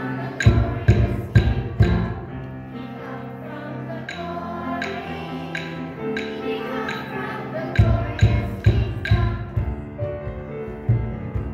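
Instrumental music: evenly spaced struck notes ring over held tones, with heavy low beats coming in about half a second in and again near eight seconds.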